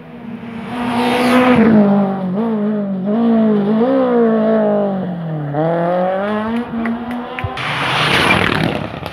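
Rally car engine revving hard, its pitch climbing and dropping again and again through gear changes as it comes up the road and passes close by. A loud rush of noise comes about a second in and again near the end, as the car goes by.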